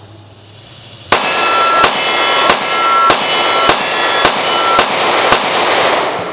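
Smith & Wesson M&P Shield 45 ACP semi-auto pistol firing eight shots in steady succession, about a second in and evenly paced over some four seconds. A metallic ring lingers between the shots.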